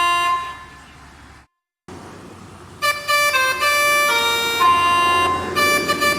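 Bus telolet horn, a set of tuned air horns, playing a tune of steady notes that change pitch. The tune falls away about half a second in, and after a quiet gap of about two seconds it starts up again and plays on.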